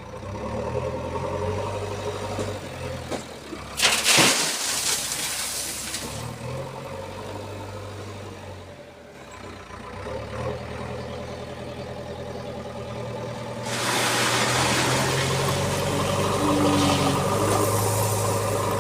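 JCB 3DX backhoe loader's diesel engine running under load, with a loud rush of stone chips pouring out about four seconds in that fades over a couple of seconds. From about fourteen seconds a longer, steadier rush of pouring chips joins the engine, which is working harder.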